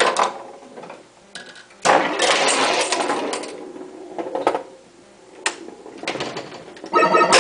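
Bally Voltan Escapes Cosmic Doom pinball machine in play: the clatter and clacks of the ball striking bumpers, targets and solenoid-driven parts, busiest about two seconds in, with electronic game tones near the end.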